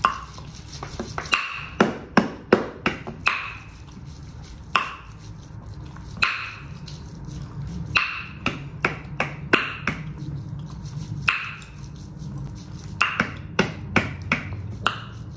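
Close-up eating and handling noises: irregular sharp clicks and short crinkles as food, its packaging and a drink are handled and chewed, over a low steady room hum.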